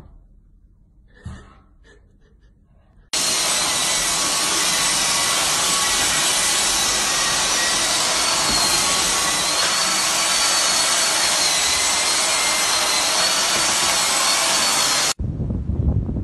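Stick vacuum cleaner running steadily with a high-pitched motor whine. It starts suddenly a few seconds in and stops abruptly near the end.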